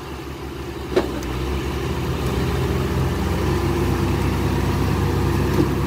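Heavy diesel engine of earthmoving machinery running steadily. A single sharp knock comes about a second in, after which the engine runs slightly louder.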